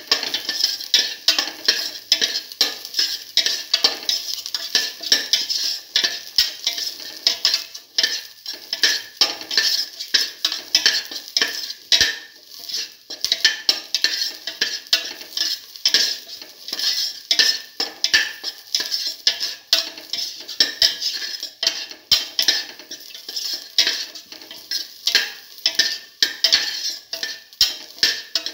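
A spatula stirs and scrapes sliced onion, shallots, garlic and ginger around a stainless steel pot in a rapid, continuous run of metallic clinks and scrapes. Beneath them the oil sizzles steadily as the aromatics sauté.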